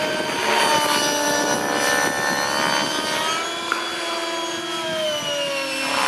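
Radio-controlled model helicopter flying overhead: a steady high whine from its drive and rotor, made of several tones. The pitch of these tones slides slowly down over the last two seconds or so.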